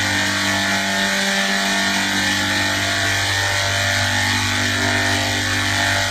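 Steady machine drone: a constant low hum with a layer of hiss, holding the same pitch and level throughout.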